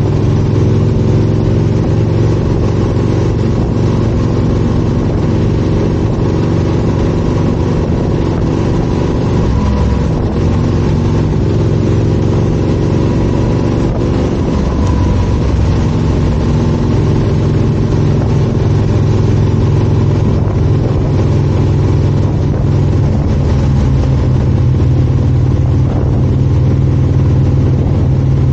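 Yamaha XT1200Z Super Ténéré's parallel-twin engine running steadily under way, its pitch dipping and rising a little partway through, over a steady hiss.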